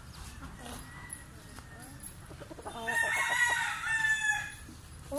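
A rooster crowing once, one long call starting a little under three seconds in and lasting about a second and a half.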